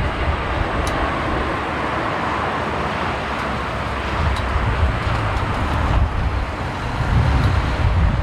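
Steady, loud jet roar of a Boeing 747-400 freighter's engines, a broad rushing noise over a heavy low rumble.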